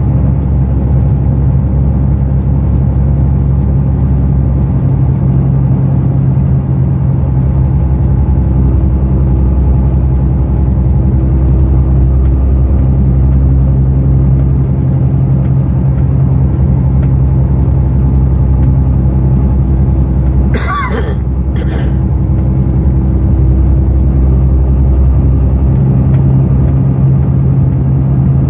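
Heavy truck's diesel engine and road noise heard from inside the cab while cruising, a steady low drone. About two-thirds of the way through there is a short sharp sound with a brief squeal, then a second click a second later.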